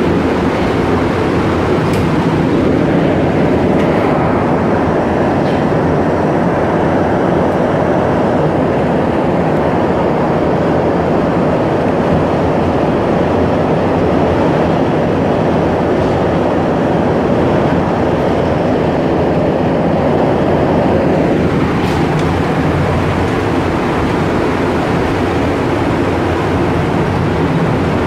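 Cabin noise of a rubber-tyred Montréal Métro train in motion: a tone that rises in pitch over the first few seconds as it picks up speed, then a steady loud running rumble through the tunnel. About three-quarters of the way through, the tone falls in pitch as the train brakes.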